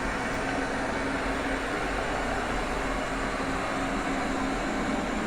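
Roomba robot vacuum running with a steady whir.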